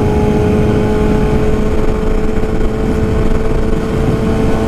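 Yamaha R6's inline-four engine with an aftermarket exhaust, running steadily at cruising revs, its pitch creeping slightly upward as the bike gently accelerates. Wind rushes over the helmet-mounted microphone throughout.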